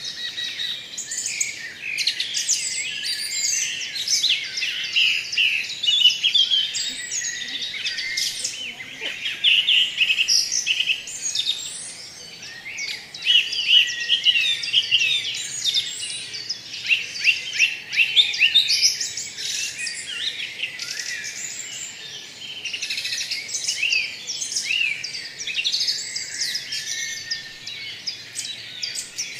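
A chorus of many birds chirping and singing at once: dense, overlapping high chirps and trills, dipping a little in places.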